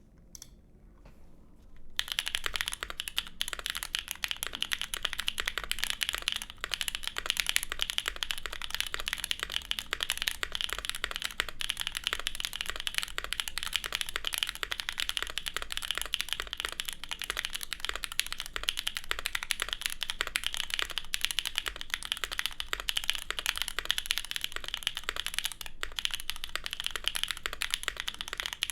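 Continuous fast typing on a gasket-mounted Vega mechanical keyboard with an aluminium plate, factory-lubed Gateron Cream Soda reduced-travel switches on the alphas and spacebar, and GMK keycaps. The typing starts about two seconds in.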